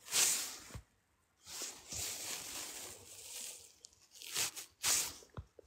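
Giant panda tearing and crunching bamboo as it eats, in rough noisy bursts: one right at the start, a longer stretch through the middle, and two short ones near the end.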